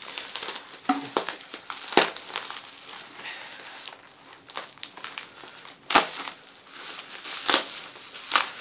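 Plastic bubble wrap crinkling and crackling as it is handled and cut open with scissors. There are a few sharper cracks, about two, six and seven and a half seconds in.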